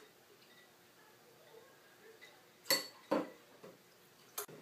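A metal jigger and glassware clinking while juice is measured and poured into a mixing glass of ice. There are a few short knocks, the loudest two close together a little under three seconds in, then a softer knock and a small sharp click near the end.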